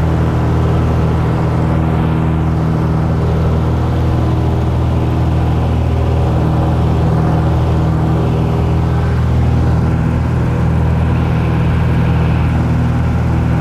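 Single-engine light aircraft's engine and propeller droning steadily in cruise-like flight, heard from inside the cabin; the pitch and level hold constant throughout.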